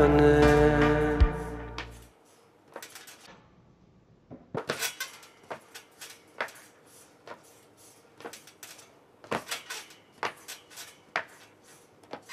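Background song fading out over the first two seconds. Then a trampboard and trampoline give irregular light clicks and clacks, some in quick clusters, as the rider bounces on the mat.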